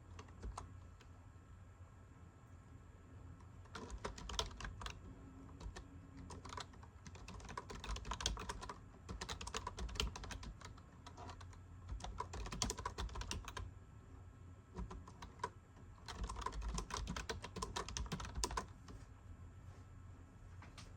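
Typing on a computer keyboard: bursts of rapid key clicks a second or two long, with short pauses between them.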